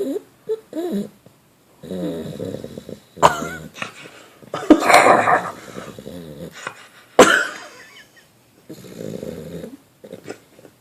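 A sleeping dog snoring: a slow series of drawn-out, rasping breaths, with three louder, sharper sounds among them.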